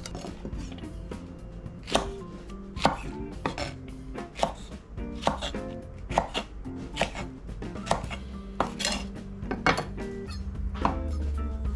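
Chef's knife chopping okra into pieces on a thick wooden cutting board: a run of sharp knocks, about two a second, starting about two seconds in, over background music.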